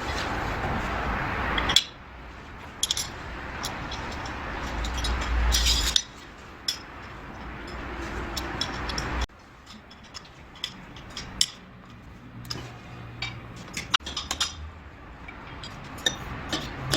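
Scattered light clicks and knocks, like tools or small parts being handled, over a steady background noise that changes abruptly several times.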